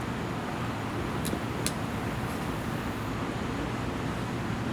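Wind buffeting the microphone with a steady low rumble, and two small sharp clicks close together about a second and a half in.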